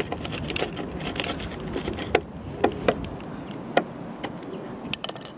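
Steel screwdriver tip prodding and scraping at a rusty fixing in a car's rear wheel arch repair panel: a string of irregular sharp clicks and short scrapes of metal on rusty metal.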